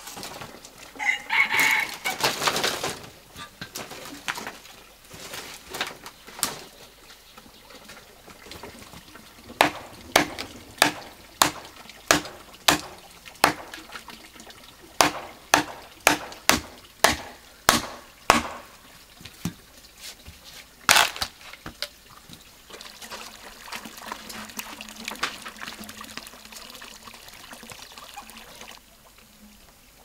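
A rooster crowing about a second in, then a run of about a dozen sharp knocks, one or two a second with a short pause midway and one more a few seconds later, then a stretch of water trickling.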